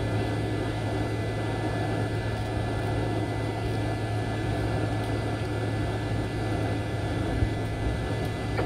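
Airliner engine and air noise heard from inside the passenger cabin: a steady low hum under even rushing noise, with a faint high whine held at one pitch.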